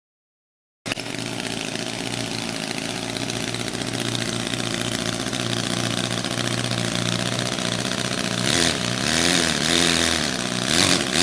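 Handmade 50cc four-stroke petrol boxer twin engine running steadily. Near the end it is revved up and back down a few times as the throttle is worked by hand.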